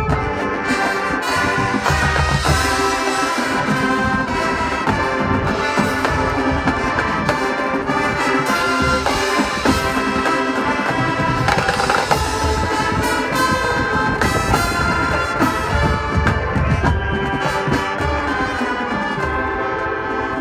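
High school marching band playing, brass-led, with percussion: trumpets and trombones carrying the tune over the front ensemble's keyboards and drums, with sharp percussion hits in the second half.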